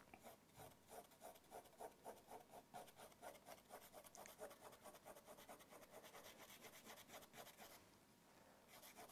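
Pencil hatching on drawing paper: faint, quick, even scratching strokes with the side of the lead, about five a second, with a short pause near the end.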